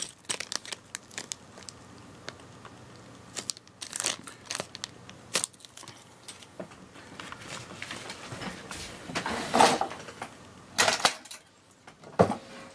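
Plastic packaging of keycap sets crinkling and rustling as it is handled, with scattered small clicks and knocks and a longer rustle about nine seconds in.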